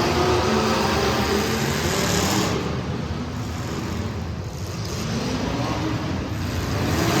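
Street stock race car engines running hard on track, easing off a few seconds in and building again near the end as the cars come back around.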